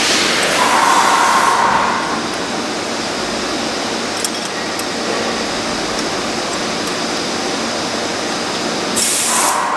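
Valve grinder running, grinding a valve's gasket seating face: a steady, noisy machine sound with a hum that fades about two seconds in and returns near the end, and a short burst of hiss about nine seconds in.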